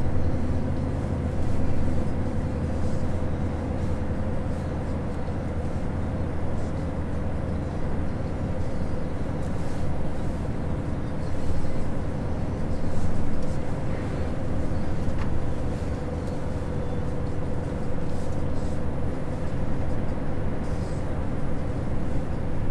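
Scania truck driving at a steady speed: a continuous engine drone with a steady hum over tyre and road noise, heard from inside the cab.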